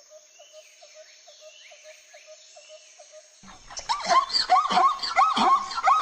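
Faint background of regular ticking and scattered chirps. About three and a half seconds in, a zebra starts its barking call, a fast run of short, high yelping notes.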